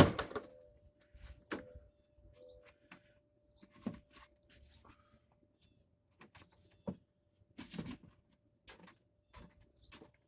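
Scattered light knocks and clunks as a push lawn mower is lowered off a jack stand and handled, with one louder knock at the very start and a faint steady hum underneath.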